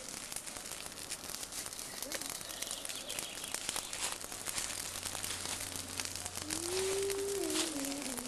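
Wood campfire crackling, with many small pops. A person's voice holds a drawn-out tone for a second or two near the end.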